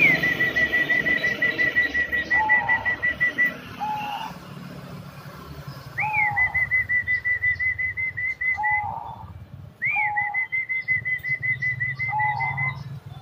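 Caged zebra dove (perkutut) cooing in short low notes. Three long high whistled phrases sound among the coos, each opening with a rising-and-falling note and running into a rapid, even string of repeated notes for about three seconds.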